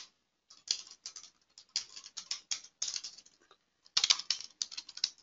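Typing on a computer keyboard: irregular runs of key clicks, with a short pause a little after three seconds in.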